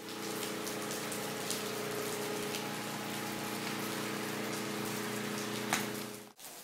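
Steady rain falling, with scattered drip clicks, over a low steady hum. One sharp, louder click comes near the end.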